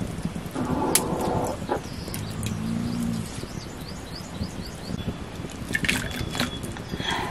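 Rustling as a bundle of wild asparagus stalks is handled, with a quick series of small bird chirps in the background and a brief low hum about three seconds in. Near the end, water splashes in a wok as the stalks are pushed into it.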